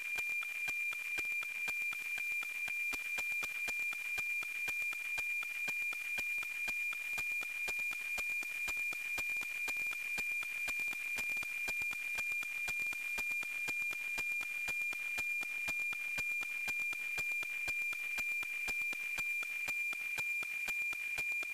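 NOAA-19 weather satellite APT signal received on an RTL-SDR: a steady high tone with a fast, evenly repeating ticking beat, the familiar tick-tock of the image lines and sync pulses. The signal is clear and strong.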